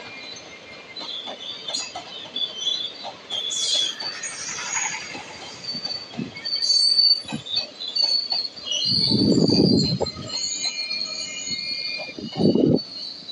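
Indian Railways ICF passenger coaches rolling past, with the wheels squealing in steady high tones over a clicking of wheels on the rails. Bursts of low rumble come about nine and twelve seconds in, as the rear of the train goes by.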